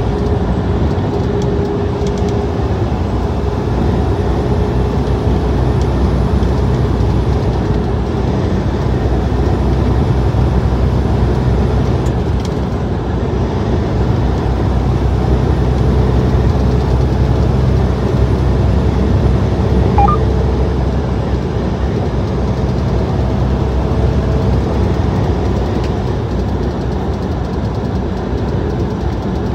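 Steady drone of a semi-truck's engine and tyres cruising on the highway, heard from inside the cab.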